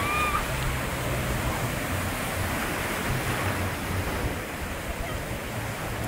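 Sea surf breaking in the shallows: a steady, even rush of waves.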